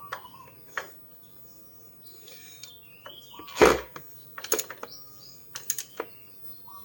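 Scattered metal clicks and knocks of a socket wrench working the exhaust header nuts, with one louder knock about halfway through. Birds chirp faintly in the background.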